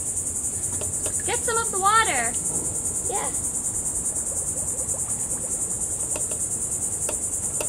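A steady, high-pitched insect chorus with a fast pulse throughout. A brief wavering call cuts through about a second and a half in.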